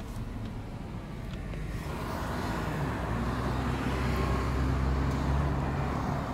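Car engine and road noise heard from inside the cabin, a steady low hum with a wider rush that builds about two seconds in, is loudest a little after the middle and eases off near the end.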